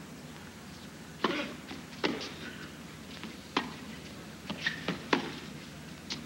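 Tennis rally on a hard court: a string of sharp pops from racket strings striking the ball and the ball bouncing, about a second or so apart, with a quick cluster of them a little past the middle.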